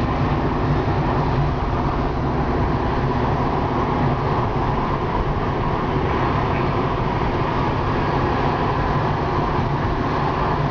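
A car's engine and tyre noise heard from inside the cabin while driving through town streets: a steady low engine hum under road rumble.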